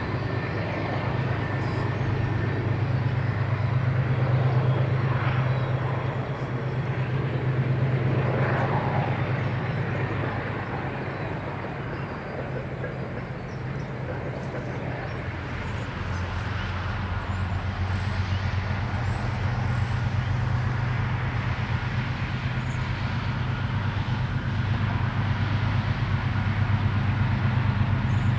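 Diesel locomotive engine running: a steady low drone that swells and eases slowly.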